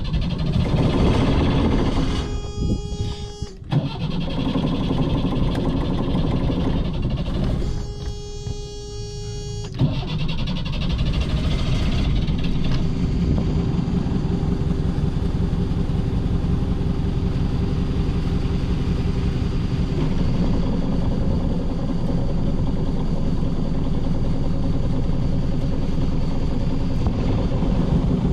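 Hire motor cruiser's engine running steadily under way, a constant low drone. During the first ten seconds it is broken by snatches of background music with short gaps.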